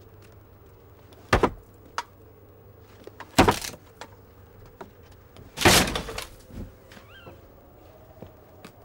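Heavy wooden door being battered: three loud blows about two seconds apart, the last the heaviest, with lighter knocks between them, as the door is forced.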